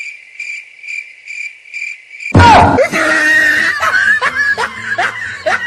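Dubbed-in sound effects: a high, thin chirp pulsing about twice a second, then about two seconds in a sudden loud burst with a low thud, followed by shrill squeals that rise in pitch over and over, about two or three a second.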